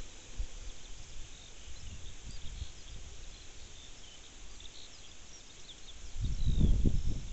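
Small birds chirping in short, scattered calls over wind buffeting the microphone in low gusts, which turn much stronger about six seconds in, the wind ahead of an approaching storm front.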